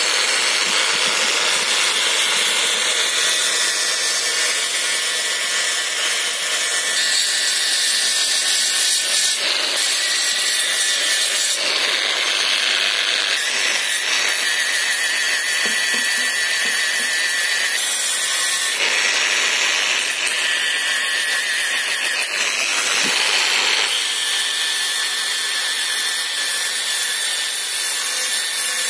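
Angle grinder running with a P120 sanding disc on a backing pad, sanding a cast aluminium alloy wheel rim: a steady motor whine under the rasp of abrasive on metal. The tone shifts every few seconds as the disc is pressed and moved along the rim.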